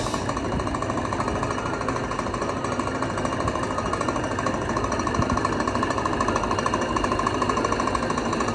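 Steady, rapid mechanical rattling from a running machine or power tool.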